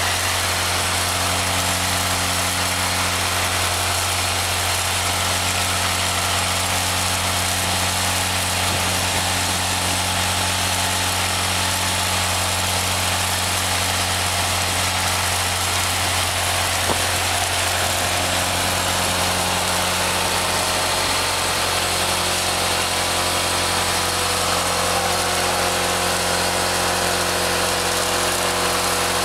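Spray-injection pothole patcher's engine and blower running steadily, with the continuous rushing hiss of air blasting aggregate and emulsion out of the hose nozzle.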